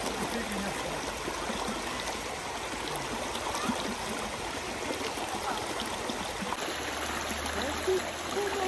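Shallow mountain stream running over rocks, a steady rushing and rippling of water.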